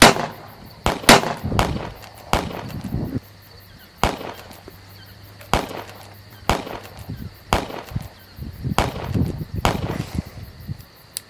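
Rifle shots, about a dozen at irregular intervals of roughly a second, some in quick pairs.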